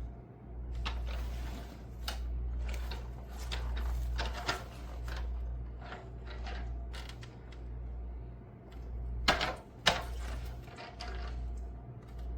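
Irregular clicks and knocks from something being handled, over a steady low hum; the two loudest knocks come about nine and ten seconds in.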